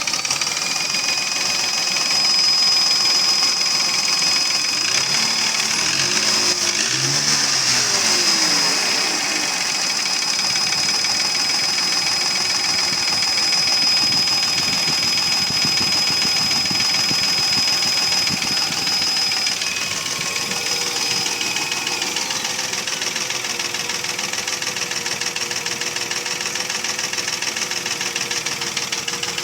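Mercedes ML320's M112 3.2-litre V6 running with a steady, rhythmic knocking. The owner puts the knock down to piston slap from scored cylinder walls, not to the timing chain, lifters or bearings.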